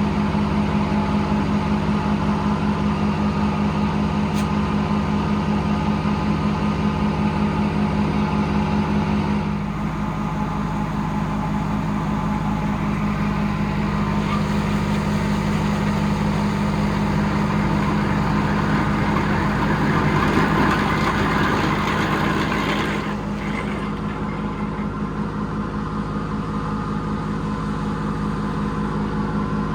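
Detroit Diesel engine running an old circle sawmill at a steady speed. Its low note shifts about a third of the way in. A rougher, hissy layer then builds over it for several seconds, the saw blade cutting through the log, and cuts off sharply about three-quarters of the way through.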